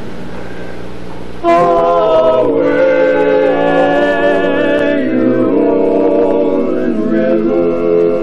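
Male barbershop quartet singing a cappella in four-part close harmony, coming in loudly about a second and a half in and holding sustained chords that shift together.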